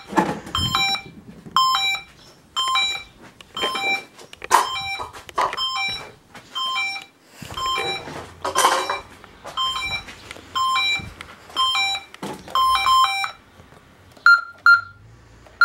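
Optima compact alarm system's keypad beeping as keys are pressed: a long run of short beeps at uneven gaps, each with a faint key click, while codes are entered in engineer's mode. Near the end come two beeps at a different pitch.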